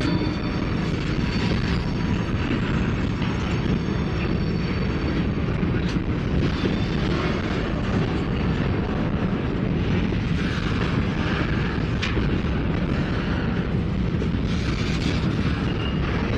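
Freight train's covered hopper cars rolling past close by: a steady, heavy rumble of steel wheels on the rails, with a few sharp clicks.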